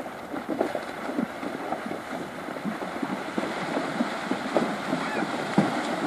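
Horses' legs splashing through shallow river water as they trot and canter, an irregular churning of splashes that grows louder as they come closer.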